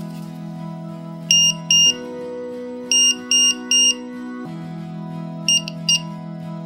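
The piezo buzzer of a 1S–8S LiPo battery monitor alarm beeping in groups, over background music. There are two beeps about a second in, then three evenly spaced beeps, then two shorter ones near the end, all on the same high tone.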